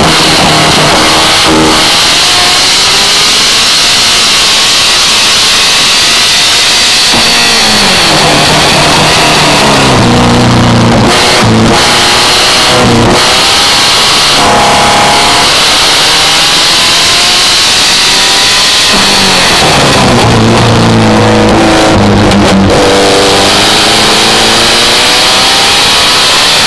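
Birkin S3's engine under hard acceleration on track, its note climbing repeatedly through the gears, then falling away sharply twice as the car brakes and the revs drop for corners.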